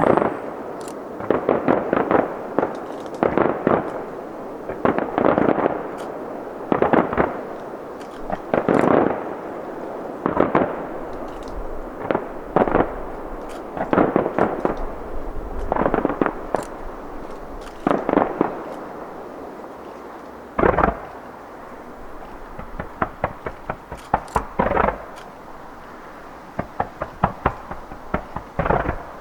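Aerial fireworks shells bursting one after another, each bang trailing off in an echo, with quick strings of smaller crackling pops in between.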